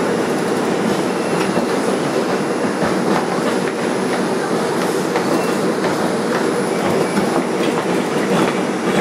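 Bombardier R142 subway car running on the rails: a steady rumble of wheels on track with clickety-clack over the rail joints and a few brief, faint wheel squeals.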